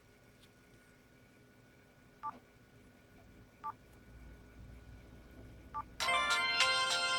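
Three short key beeps from a Hitachi W43H mobile phone, spaced a second or two apart. About six seconds in, the phone starts playing a louder ringtone melody.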